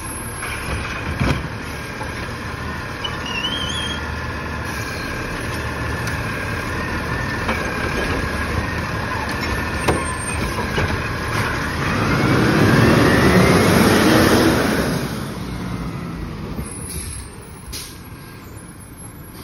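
Automated side-loader garbage truck working a trash cart: the diesel engine runs with a steady hydraulic whine as the arm grabs, lifts and dumps the cart, with sharp knocks about a second in and again about 10 s in. About 12 s in the engine grows louder for a few seconds as the truck pulls away, then fades.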